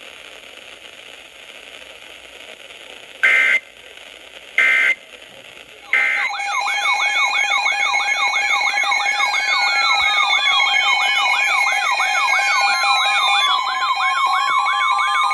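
Emergency Alert System signal: low static hiss, then two short electronic data bursts a little over a second apart. About six seconds in, a loud layered alert tone starts, with several electronic tones warbling rapidly up and down like sirens over steady tones and slow sliding sweeps.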